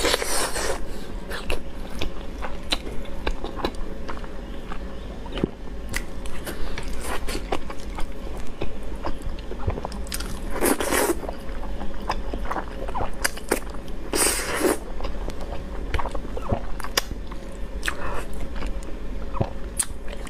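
Close-miked eating sounds: a person biting and chewing soft braised eggs and sauce-coated zhajiang noodles, with many small wet mouth clicks. Louder noisy bursts come at the very start, a little past the middle and again a few seconds later, as noodles are sucked in.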